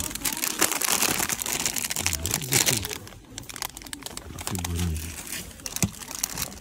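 Plastic chocolate share bags (Cadbury Dairy Milk Buttons) crinkling as they are handled and pulled off a shop shelf, loudest over the first few seconds.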